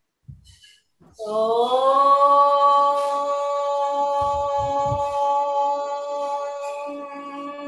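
A voice chanting one long held note. It begins about a second in with a short upward slide into pitch, then holds steady.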